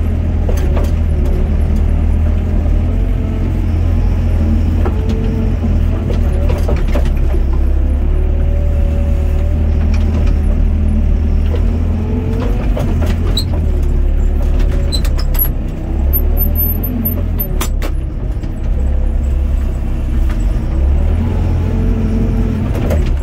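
Doosan DX55 mini excavator working from the cab: the diesel engine runs steadily under load while the hydraulics whine, rising and falling in pitch as the boom and bucket move soil back into a trench. A few sharp clicks are heard now and then.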